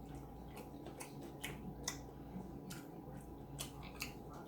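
Close-up eating sounds: a scattered run of short, soft wet clicks and smacks from the mouth and hands while chewing seafood-boil food, several over the few seconds.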